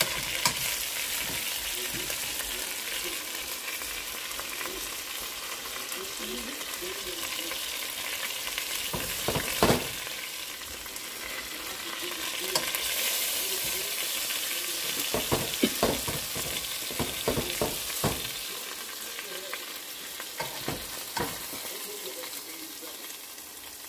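Skin-on chicken thighs sizzling steadily as they fry in hot oil in a pot, with a few sharp knocks and clicks from metal tongs lifting pieces out. The sizzle eases off near the end.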